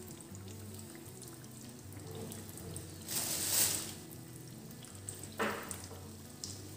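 Breaded chicken patties frying gently in shallow, lightly heated oil, with a soft sizzle. A louder hiss about three seconds in as another patty goes into the pan, and a brief click near the end as the gas stove's knob is turned.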